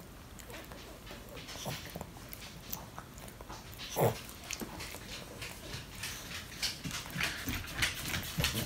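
Chihuahua gnawing on a dog chew: scattered short crunching and clicking bites, with one louder one about four seconds in and the bites coming thicker toward the end.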